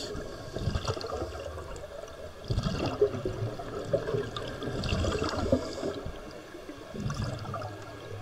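Scuba diver's breathing heard underwater: exhaled bubbles gurgle up from the regulator in bursts about every two seconds, with a fainter hiss of air drawn through the regulator.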